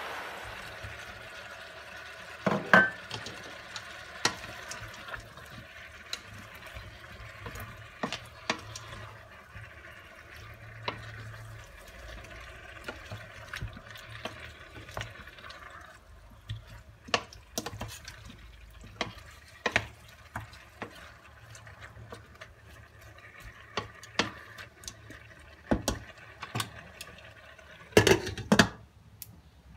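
A pot of green beans cooking in a stainless-steel pot, with a steady wet hiss from the pot and scattered knocks and scrapes as the beans and potato cubes are stirred in with a wooden spoon; a loud knock comes a few seconds in as the potatoes are tipped in. Near the end a cluster of loud clanks comes as the glass lid is set on the pot.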